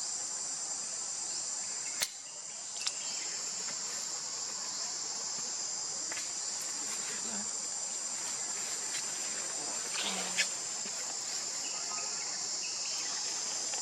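A steady, high-pitched chorus of insects trilling, with a sharp click about two seconds in and another near ten seconds.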